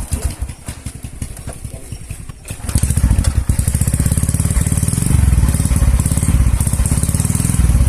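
Small motorcycle engine running through a hollowed-out stock Tiger Revo muffler, pulsing unevenly at first, then revved up about two and a half seconds in and held at higher revs, louder.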